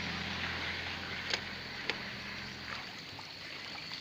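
Floodwater sloshing and rushing, stirred up by a vehicle driven fast through the flood, over the low hum of a vehicle engine that fades out about three seconds in. Two faint clicks in the middle.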